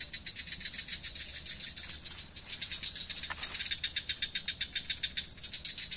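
Night insects calling: a steady high-pitched whine with rapid, evenly pulsed chirping underneath, and one brief noise about three seconds in.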